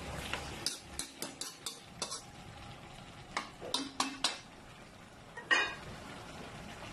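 A metal ladle stirring and knocking against an aluminium wok of vegetables and dried fish in coconut milk. There is a quick run of clinks in the first two seconds, a few more around four seconds in, and the loudest knock near the end.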